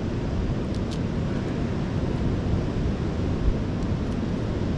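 Steady low rumble of wind on the microphone mixed with surf on a beach, with a few faint ticks about a second in and a brief soft thump about halfway.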